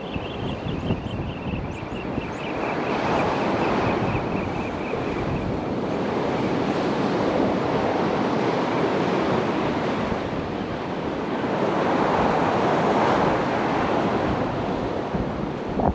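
Sea waves washing onto the shore, with wind buffeting the microphone. The surf swells about three seconds in and again later on.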